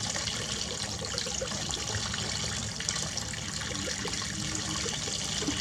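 Water running steadily from a tap during a pet monkey's bath.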